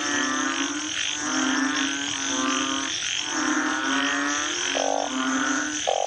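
A chorus of frogs calling: long, low, droning calls that repeat about once a second at two slightly different pitches and overlap one another, over a steady high buzz.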